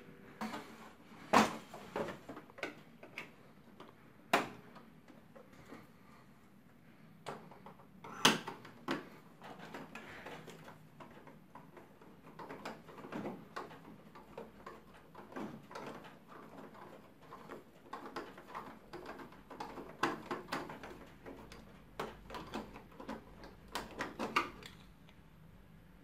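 Irregular clicks, knocks and rattles from the plastic parts of a Xerox WorkCentre copier being handled and unfastened by hand, with a few sharper knocks in the first third.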